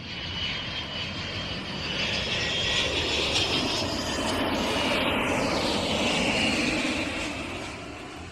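Airplane flying past, its engine noise swelling to loudest midway, with a high whine, then fading away.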